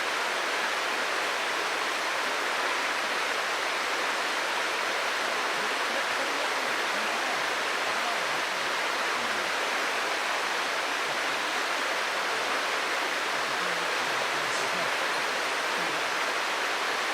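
Mountain stream water rushing with a steady, even sound.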